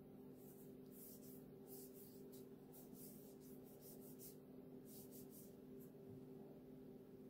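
Near silence with faint rubbing of palms rolling a piece of fondant, in short strokes about two a second, over a steady low hum.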